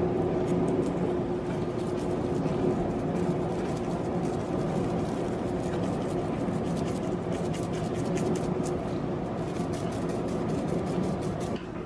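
Hand pepper mill grinding black pepper over a salmon fillet: a rapid rasping crackle about halfway through and on toward the end, over a steady hum that drops away sharply near the end.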